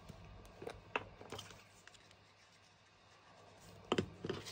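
Faint taps and clicks of paper card pieces and a plastic glue bottle being handled on a cutting mat, with a few soft taps about a second in and a couple of sharper clicks near the end as the glue bottle is picked up.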